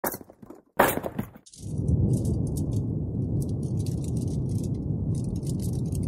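A couple of sharp crashing hits in the first second and a half, the louder about a second in. Then a campfire burning steadily, a low rumble with scattered sharp crackles and pops.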